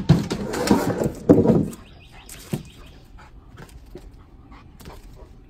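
A dog panting loudly close to the microphone for just under two seconds, followed by a few faint clicks.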